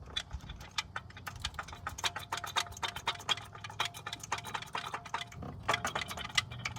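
Chrysler 2.7 V6 engine running with a fast, even ticking, several clicks a second over a low hum, which the owner puts down to a failed water pump that leaked coolant into the oil.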